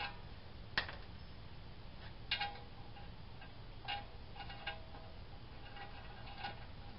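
Faint, irregular metallic clicks and clinks, about six in all, some with a short ring: a lug nut being spun by hand down a new wheel stud against an old axle nut used as a spacer on the wheel hub.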